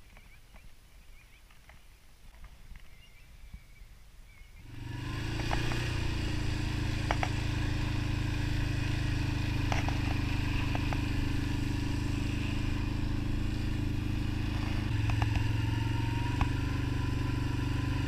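A quad bike's engine running steadily while being ridden along a dirt track. It comes in suddenly about five seconds in, after a low background with a few faint clicks.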